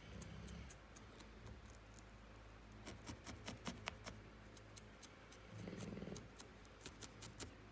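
Faint, quick clicks of a felting needle stabbing into wool, a few pokes a second in short runs, over a low room hum.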